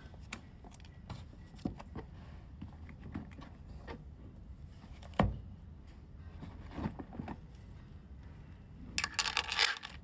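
Things being taken out of a canvas tote bag and set on a desk: small knocks and rustles over a low steady hum, a single thump about five seconds in as a book is put down, and a burst of rustling near the end.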